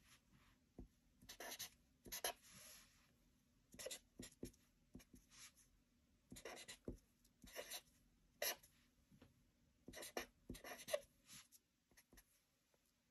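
Sharpie pen writing on paper: faint, short scratchy strokes in separate groups, with pauses between the figures.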